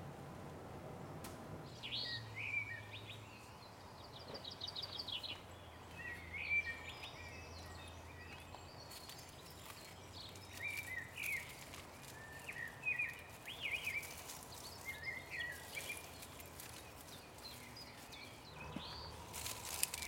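Outdoor garden ambience with birds chirping and singing in short repeated phrases over a faint steady background. Near the end come a few brief rustles as onions are pulled from the dry leaves and wood-chip mulch.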